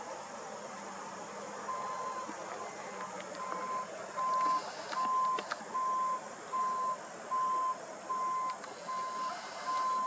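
A reversing alarm beeps in a steady on-off pattern, a single high tone a little faster than once a second, starting about two seconds in and growing louder about halfway through. A steady background hiss runs underneath.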